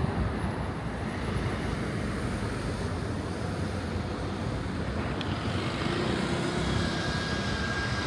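Steady outdoor city rumble of distant engine noise, with a higher hiss building over the last couple of seconds.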